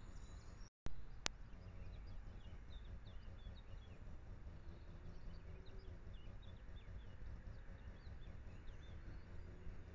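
Faint garden ambience through a trail camera's hissy microphone: scattered short, high chirps of small birds. A brief dropout comes where one recording cuts to the next, followed by a single sharp click about a second in.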